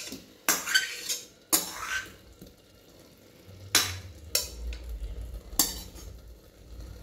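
A metal spoon scraping and clattering on a steel plate as chunks of fried jackfruit are pushed off into a pressure cooker, about five scrapes with short quiet gaps between them, over a faint sizzle.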